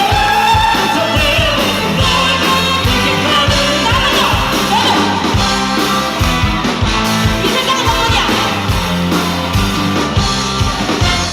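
Live popera singing over a big band: classically trained voices carrying a gliding melody over a steady drum beat and sustained band chords.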